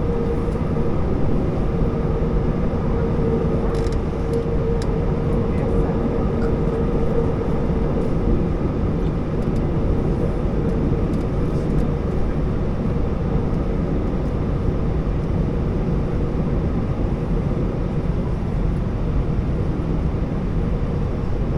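Airbus A320 cabin noise while taxiing after landing: a steady low rumble with a faint steady whine.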